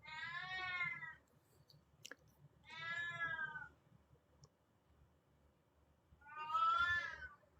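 Oriental Shorthair cat meowing three times, each call about a second long, with a couple of seconds between them.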